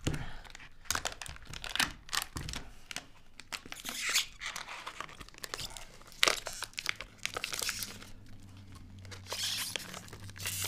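Plastic film of a sealed package of frozen sliced steak being peeled apart and crinkled: irregular tearing and crackling, with one sharp crack about six seconds in.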